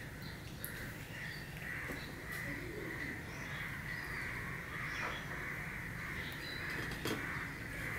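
Birds calling in a steady, continuous chatter, over a low steady hum, with a few faint clicks as roti is torn on a steel plate.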